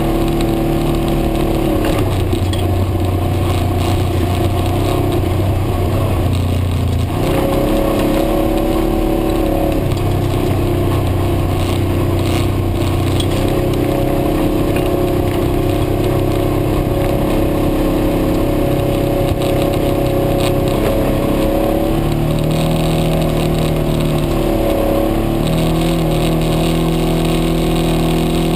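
Side-by-side UTV engine running while driving along a dirt trail, heard from inside the cab; its pitch steps up and down several times as the engine speed changes.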